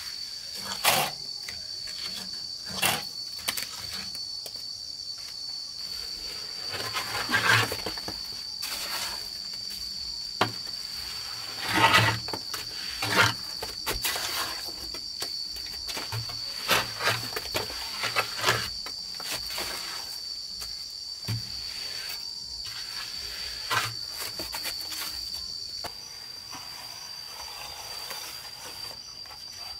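Irregular knocks and taps of hand building work, over a steady high-pitched insect drone.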